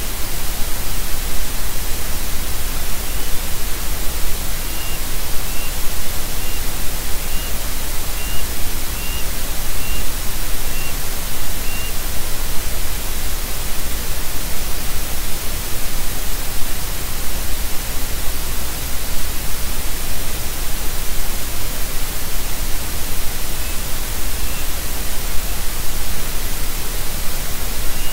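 Steady loud hiss of static from the nest-cam microphone. Through it come a series of about ten faint, short, high chirps roughly one a second over the first half, and two or three more near the end, from a bird calling.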